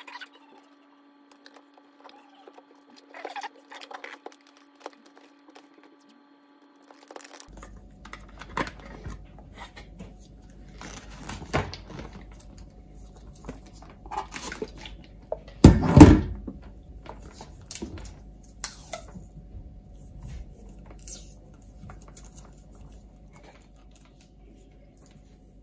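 Handling noise from a coil of coax cable wound on a plastic bottle: irregular rustling, rubbing and light clicks as the cable is shifted and worked, with a louder knock about sixteen seconds in.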